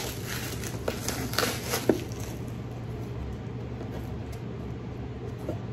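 Plastic bubble wrap crinkling and crackling as it is pulled off a cardboard gift box, in a run of short crackles over the first two seconds. After that only a faint steady low hum remains.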